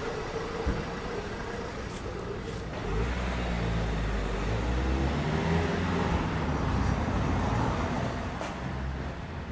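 Street traffic: a motor vehicle passes close by, its engine swelling about three seconds in and fading away near the end, over a steady background of town traffic noise.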